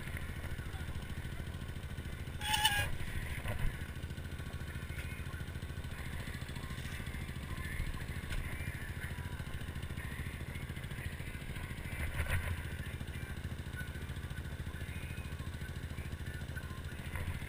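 ATV engine idling steadily with a low, even hum. A short louder noise comes about two and a half seconds in.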